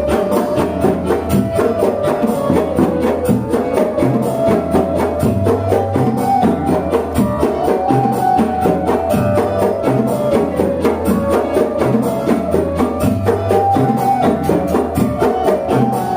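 Rebana frame-drum ensemble playing a steady, busy rhythm, with a melody line held above the drums.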